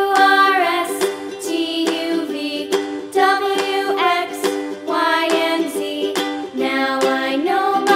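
Background music: a light tune of plucked-string chords with a melody over them.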